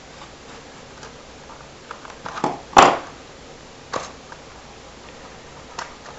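Small cardboard box being pried open by hand: a few short, sharp crackles and snaps of the flap and tape. The loudest comes about three seconds in, with single ones near four and six seconds.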